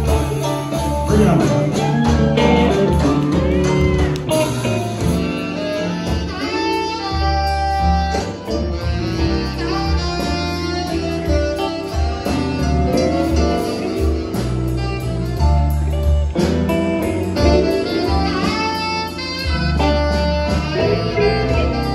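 Live electric blues band playing, a saxophone taking the lead with long held notes over electric guitars and drums.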